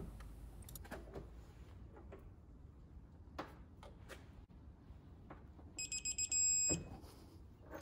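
Digital torque wrench tightening a 1-inch bolt, with a few faint clicks. Near the end comes a quick run of high electronic beeps and then a steady beep of about half a second, the signal that the set torque of 250 ft-lbs has been reached. A knock follows.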